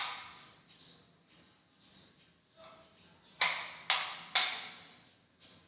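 Sharp clicks or knocks that ring on briefly in a bare, echoing room: one at the start, then three about half a second apart near the end.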